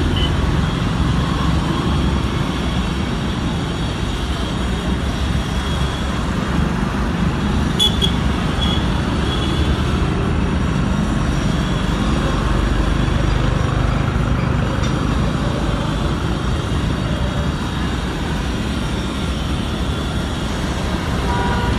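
Steady low rumble of street traffic, with a short click about eight seconds in.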